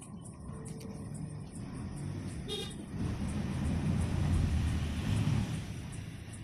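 Road traffic: a motor vehicle rumbles past, loudest a little past halfway, with a brief horn toot shortly before.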